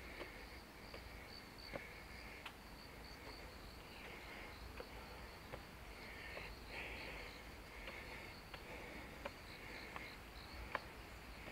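Insects chirping: a rapid, evenly pulsed high chirp, with a lower buzzing trill that comes and goes. Faint footsteps tap along about every three quarters of a second.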